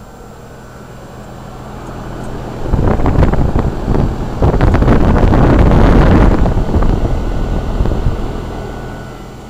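A loud rush of wind buffeting the microphone swells from about two seconds in, peaks in the middle and fades away near the end. Under it is the steady hum of a heat pump running.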